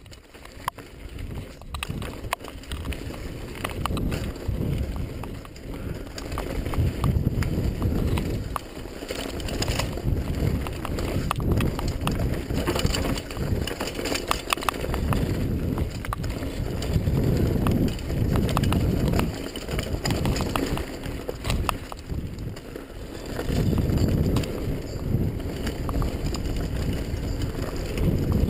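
Mountain bike riding fast down a dirt trail: wind buffeting the camera microphone and tyres rolling over dirt, with frequent clicks and rattles from the bike over bumps. The sound rises from quiet over the first few seconds.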